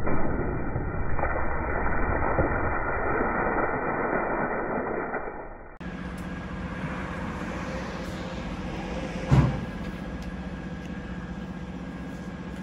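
A jet of water splashing hard against a roll-top backpack hung on a metal roller shutter, cutting off about six seconds in. After that comes a quieter steady hum with one sharp thump about nine seconds in.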